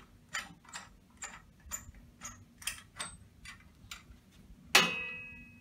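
Metal compression clamp being worked loose and taken off the end of an FRP membrane pressure vessel: a run of light clicks about two a second, then a sharp metallic clang near the end that rings on and fades as the clamp comes free.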